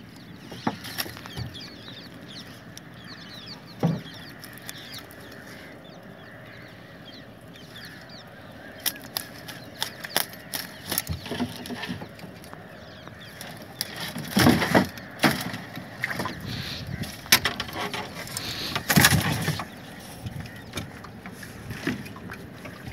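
Wet fishing net being hauled hand over hand into a small boat, with dripping water, mesh rustling and small knocks. There are two louder spells of splashing and thrashing, about two-thirds of the way through and again some four seconds later.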